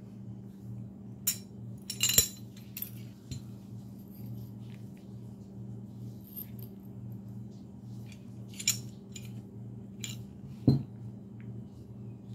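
Metal parts of a semi-automatic pistol's slide, recoil spring, guide rod and barrel, clicking and clacking as they are taken apart by hand. There are a handful of sharp clicks, the loudest about two seconds in and near the end, over a steady low hum.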